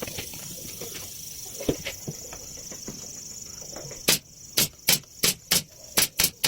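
A steady high hiss, then from about four seconds in a quick, uneven run of sharp knocks, roughly three a second.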